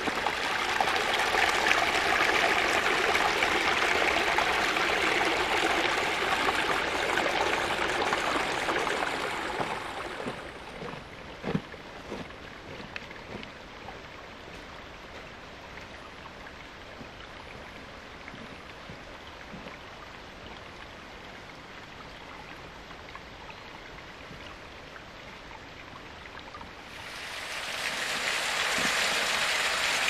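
Small woodland brook trickling and splashing over rocks, loud at first, then much quieter from about a third of the way in. A single sharp knock comes just after the drop, and near the end the rush of a small waterfall rises.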